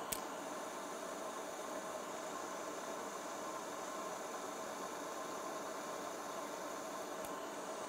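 Steady hiss with a faint hum, the workbench's background noise, and one sharp click just after the start and a fainter click near the end.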